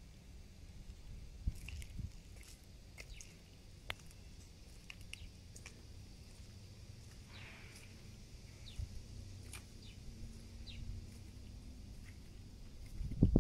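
Quiet outdoor ambience: a low wind rumble with scattered faint clicks and rustles, and one loud thump near the end.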